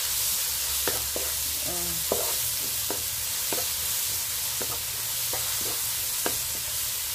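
Pounded shallot and garlic sizzling steadily in hot oil in a nonstick wok, being stirred until fragrant, with a spatula tapping and scraping against the pan a dozen or so times at irregular intervals.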